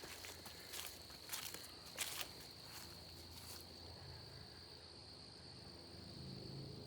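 Footsteps crunching through brush and undergrowth over the first two seconds, over a steady high-pitched insect trill. From about four seconds in, a faint low drone builds up, which the hiker takes for a helicopter.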